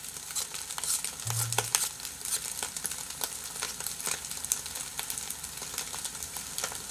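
Kimchi fried rice sizzling in oil in a wok on a portable gas burner, with irregular scrapes and taps of the utensils stirring it. Light popping crackles come from the rice as its moisture cooks off and it starts to fry in the oil.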